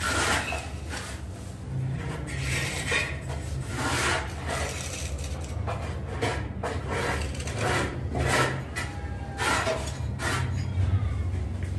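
Steel trowel and scraper blade scraping wet tile adhesive, in a dozen or so short irregular strokes over a steady low hum.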